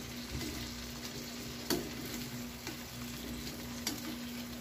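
Whole shell-on shrimp sizzling in oil in a nonstick frying pan, with a couple of sharp clicks as metal tongs knock against the pan while turning them.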